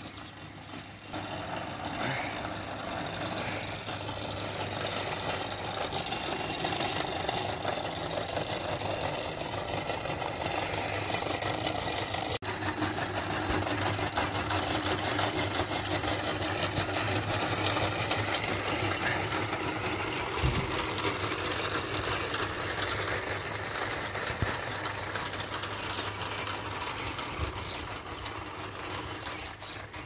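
Motor-driven chaff cutter (flywheel fodder chopper) running steadily as green fodder is fed in and chopped, a continuous mechanical whirr with a low hum. It eases off a little near the end.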